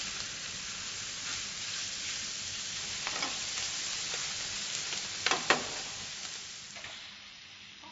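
Diced bacon sizzling as it fries in a hot pan with a little fat, a steady hiss that fades toward the end. A few sharp knocks of the cookware come about three seconds in and twice more a little after five seconds.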